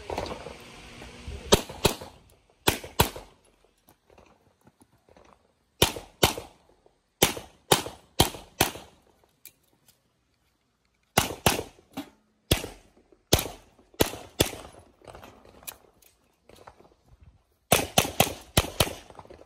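Handgun fire during a practical shooting stage: sharp shots, mostly in quick pairs, in groups with pauses of one to two seconds between them, and a fast string of shots near the end.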